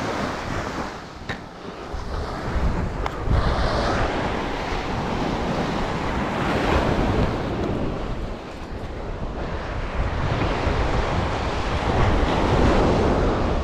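Gulf surf breaking and washing up the beach, swelling and easing every few seconds, with wind rumbling on the microphone.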